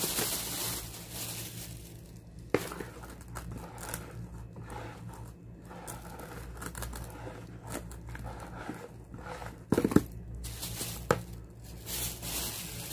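Thin plastic bag crinkling and a spoon scraping the inside of a plastic basin as sticky bait dough is scooped into the bag, with a few sharp knocks about 2.5 s in and near the 10-second mark.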